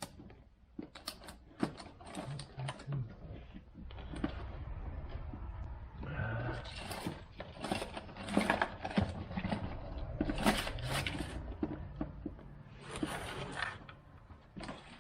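Clicks, knocks and rustling as a cordless tool kit, its battery, charger and plastic case are handled, over a low steady hum that starts about four seconds in.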